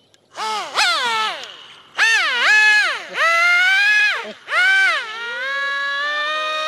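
An RC airboat's electric motor and air propeller whining in short throttle bursts, the pitch sweeping up and dropping away again several times. About five seconds in it settles to a steady high whine as the boat runs across the water.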